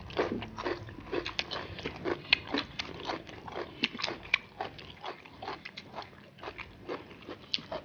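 Close-miked eating sounds: people chewing rice and fried fish eaten by hand, with lip smacks and mouth clicks coming irregularly, several a second.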